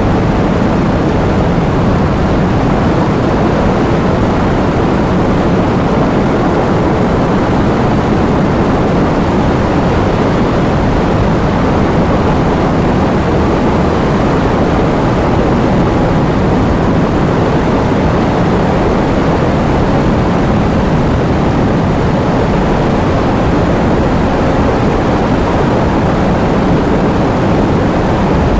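Heavy rainstorm: a dense, steady rush of rain and wind at an even level, with most of its weight in the low and middle range and no separate thunderclaps.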